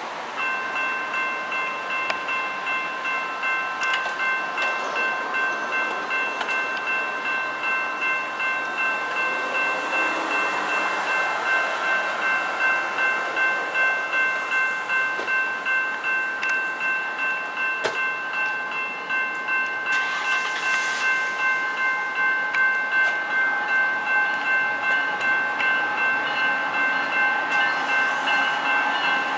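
Railroad grade-crossing warning bells ringing without a break, about two strikes a second, while a BNSF double-stack intermodal freight train approaches.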